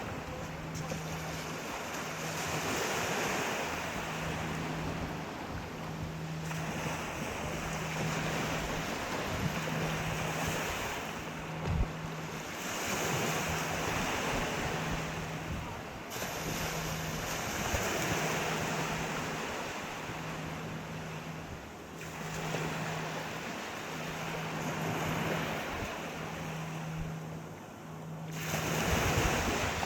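Sea waves breaking and washing on the shore, the surf swelling and falling away every few seconds. A low hum pulses on and off about every second and a half underneath.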